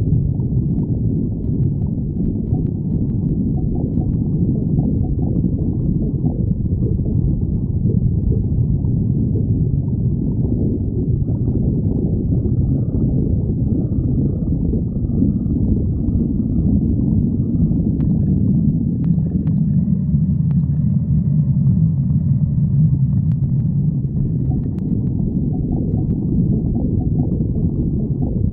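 Human stomach growling: a continuous low rumbling and gurgling, with faint higher squeaky tones through the middle.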